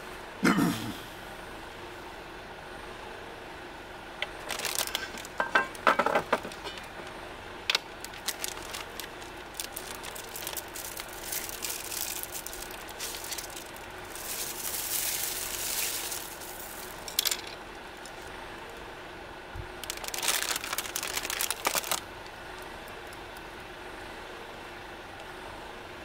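Plastic bag rustling and crinkling in several bursts as things are handled inside it, over a steady low background hum.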